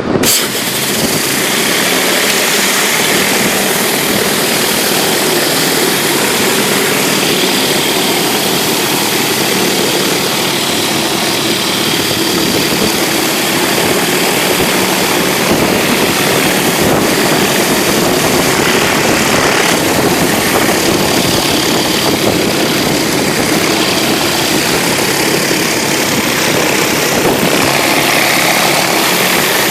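Gas-engine pressure washer running steadily, coming in abruptly at the start.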